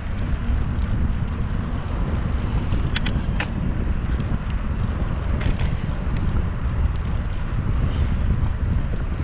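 Wind buffeting a bicycle-mounted GoPro's microphone as the bike rolls along at riding speed, a steady low rumble. A few faint clicks come about three seconds in and again near five and a half seconds.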